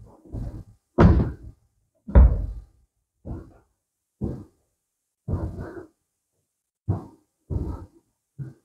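Footsteps: a series of dull thuds, roughly one a second at uneven spacing.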